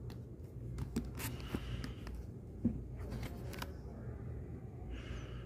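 Comic books being flipped through by hand: scattered light clicks and taps with two brief papery rustles, over a steady low room hum.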